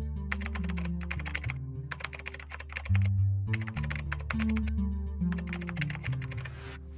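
Keyboard typing sound effect: several short runs of rapid key clicks, over background music with low held notes.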